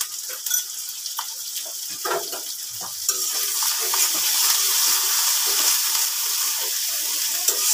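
Ground poppy seed, onion and green chili paste sizzling as it fries in hot oil in a karahi, stirred and scraped with a spatula. The sizzle gets louder about three seconds in as the paste is worked through the oil.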